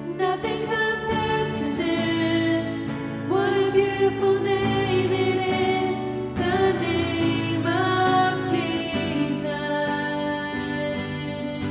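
Slow contemporary worship song played by a band: held chords, with a melody line sliding up into long notes a few times.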